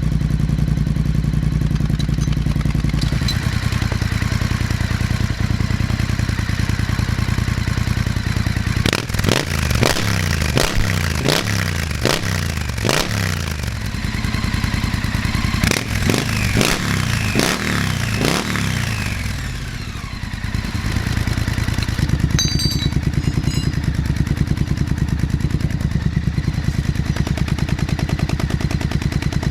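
Triumph parallel-twin motorcycle engine through an aftermarket 2-into-2 big bore decat exhaust, idling and then blipped on the throttle in two runs of quick revs about a third of the way in, before settling back to idle.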